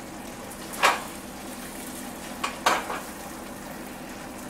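A metal utensil knocking and scraping against a roasting tin while stuffing is scooped out of roast chickens: one sharp knock about a second in, then three quick ones near the middle. A steady sizzle from the pans runs underneath.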